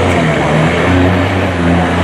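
Semi truck's diesel engine working hard under load as it pulls a weight-transfer sled, its note rising and falling in steps.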